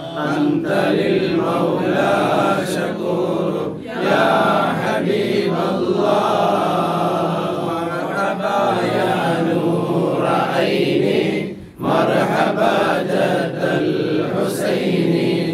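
Men chanting an Arabic mawlid praise song to the Prophet Muhammad, led by one voice reading the verses, with short pauses between phrases about four and twelve seconds in.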